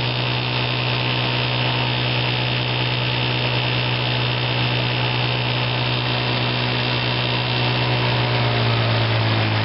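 Evinrude Fisherman 5.5 hp two-stroke twin outboard motor running steadily in forward gear, an even, high-revving buzz.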